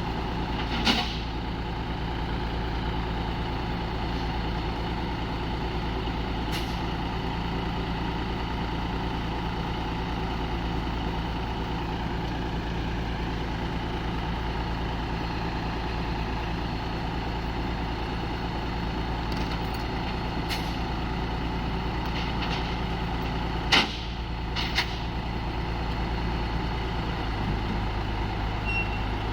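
Heavy diesel engine of an excavator running steadily, with a few sharp metallic knocks; the loudest knock comes about three-quarters of the way through.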